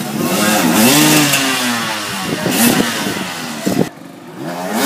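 Dirt bike engine revving hard and unevenly, its pitch rising and falling again and again as the rider works the bike over logs. It drops off abruptly about four seconds in, leaving a quieter engine running.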